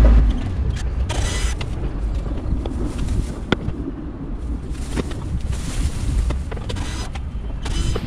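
Cordless drill-driver whirring in short bursts as bolts are taken out of a van's rear lamp, with sharp clicks and rattles of the parts being handled in between.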